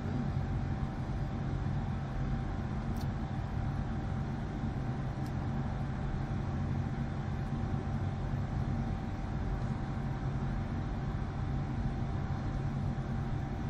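Steady low mechanical hum with a few constant tones and no change in level, with two faint clicks about three and five seconds in.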